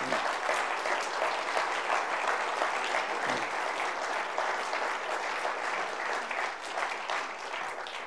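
Audience applauding steadily, dying down slightly near the end.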